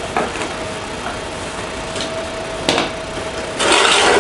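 Handling noise of a six-inch PVC pipe and its fittings as a pipe clamp is put on, over a steady faint hum. There is a single click about two and a half seconds in, and a louder scraping rustle near the end as the pipe and fittings shift on the concrete floor.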